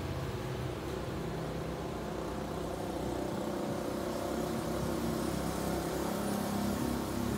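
A motor running steadily, a continuous hum that rises slightly in level over the last few seconds.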